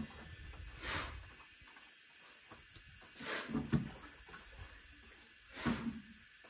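Water splashed onto bare stony ground in three short hissing throws, about a second, three and a half seconds and six seconds in. The ground is being wetted so that the base layer of the concrete floor will bond to it.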